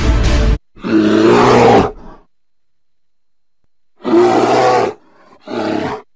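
Background music cuts off just after the start. Then a bear roars three times: one long roar about a second in and two shorter ones near the end.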